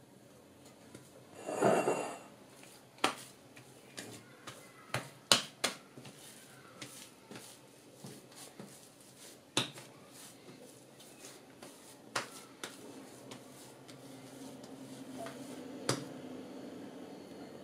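Hands working soft, sticky pumpkin bread dough on a tiled worktop: a brief louder rustle about a second and a half in, then scattered sharp clicks and smacks as the dough is pressed and pulled off the palms and tiles. A faint low hum comes up near the end.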